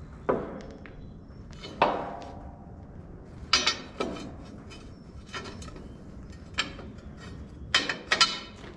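A series of sharp metallic clanks at uneven intervals, some with a brief ring: steel tools and parts knocking together while a windrower's components are bolted back on.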